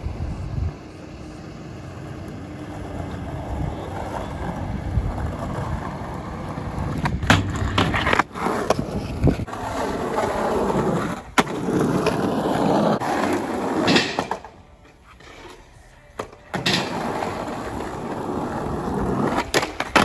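Skateboard wheels rolling on asphalt, the rolling noise growing louder, with several sharp clacks of the board popping and landing on the ground. There is a short lull past the middle.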